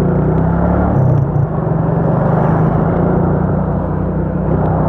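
Motorcycle engine running steadily under way, with heavy wind and road noise on a helmet-mounted microphone. The engine note dips and shifts briefly about a second in.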